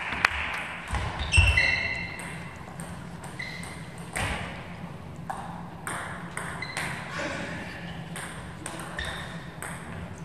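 Table tennis balls clicking off tables and bats: scattered single ticks at uneven intervals, some with a short ringing ping, the loudest about a second and a half in.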